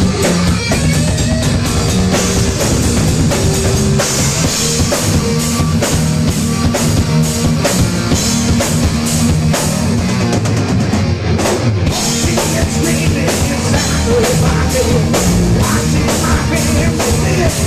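Heavy metal band playing live: electric guitar and bass riffing over fast, steady drum-kit hits, loud throughout.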